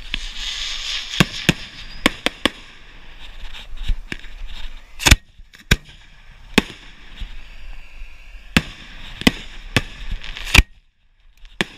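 Display fireworks going off at close range: about a dozen sharp bangs at uneven intervals, with a hiss in the first second or so. A short gap of silence comes just before the end.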